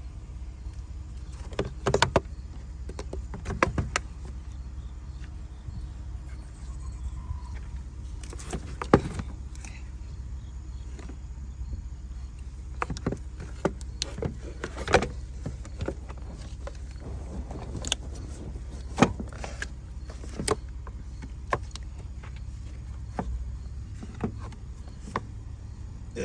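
Scattered sharp clicks and knocks of tools and parts being handled, about a dozen spread irregularly, over a steady low hum.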